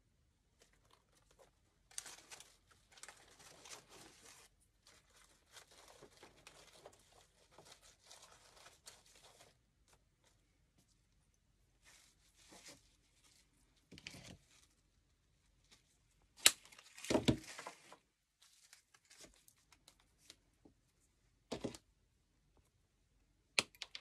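Crinkling and rustling of artificial flowers and greenery being handled for a wreath, followed by a few sharp knocks and clicks, the loudest about two-thirds of the way through.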